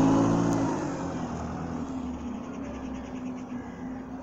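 A vehicle's engine or motor hum fading away over about the first second, leaving a quieter steady low hum.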